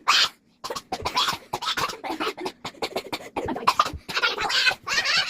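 Two people coughing over and over, in short harsh coughs coming in quick succession and overlapping.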